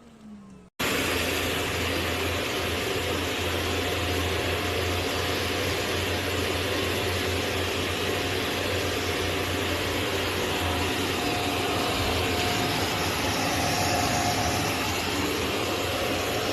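Karcher VC 3 bagless vacuum cleaner running steadily with a constant low hum under an even rushing noise, cutting in abruptly about a second in.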